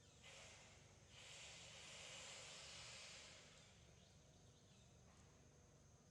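Near silence: a faint high hiss that swells about a second in and fades again a few seconds later.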